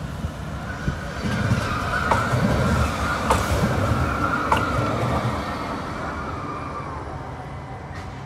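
CAF Urbos 100 light rail tram passing close by: a rumble with a steady whine that swells as it goes past, a few sharp clicks, then fades as it moves away.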